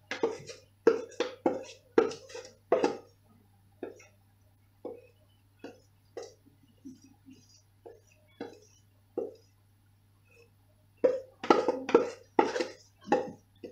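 Repeated knocks on an upturned plastic mixing bowl, tapped to shake the last of the cake batter out onto the lined baking tray. There is a quick run of knocks at the start, single knocks about a second apart in the middle, and another quick run near the end.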